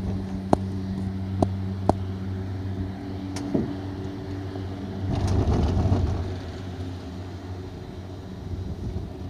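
Ski-resort gondola cabin riding along its cable: a steady mechanical hum, with four short, sharp clicks from the gondola's wheels in the first few seconds and a louder rush of noise for about a second midway.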